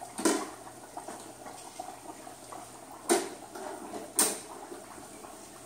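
Hot oil bubbling and crackling in a Masterbuilt Butterball XL electric turkey fryer as the basket with the fried turkey is lifted out, with three sharp metal clanks of the lift hook and basket against the fryer: right at the start, about three seconds in, and a second later.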